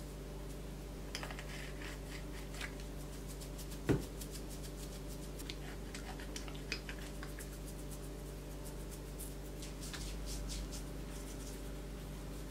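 Faint scratching and rustling of fingers parting box braids and working a root rinse from a nozzle bottle onto the scalp, with scattered small clicks and one louder knock about four seconds in, over a steady low hum.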